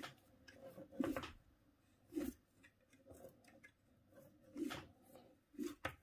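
Faint handling sounds from the rotor of an Askoll brushless washing-machine motor being turned by hand as a generator: a few short, irregularly spaced rubs and clicks with quiet between them.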